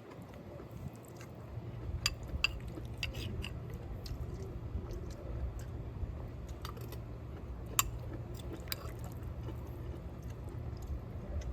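A person chewing a mouthful of food that includes carrots, with scattered short clicks and crunches over a steady low hum.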